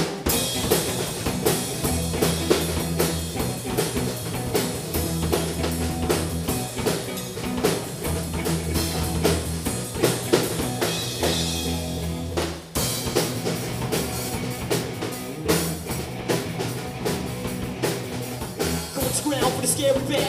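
Live rock band playing: electric guitars, bass guitar and a drum kit with busy cymbals, with a brief stop about two thirds of the way through.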